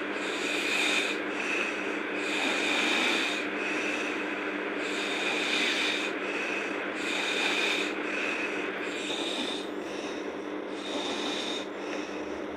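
A sleeping girl snoring, a rasping snore repeating about once a second, breath after breath.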